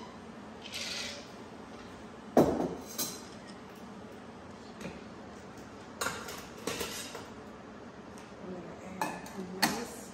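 Clinks and knocks of glassware and a metal ice scoop: one sharp knock a little over two seconds in. After that, a metal scoop rattles ice in a metal ice bucket, and near the end ice cubes clink into a rocks glass.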